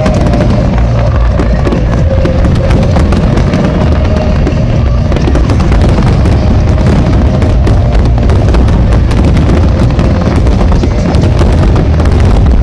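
A rapid, continuous run of fireworks bursts and crackling, with the display's accompanying music playing underneath.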